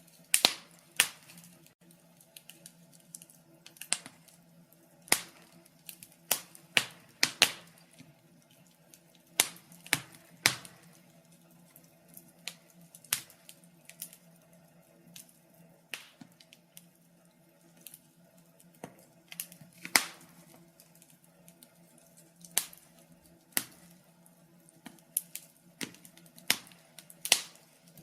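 Wood fire crackling: irregular sharp pops and snaps, sometimes in quick clusters of two or three, over a faint steady hum.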